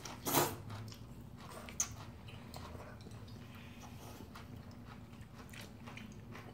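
Udon noodles slurped up once, briefly, about half a second in, then chewing with many small wet mouth clicks.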